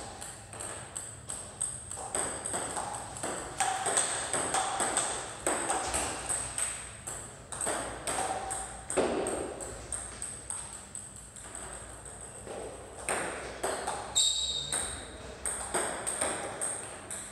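Table tennis balls clicking off paddle and table in a quick, irregular run of sharp ticks, several a second, as serves are practised.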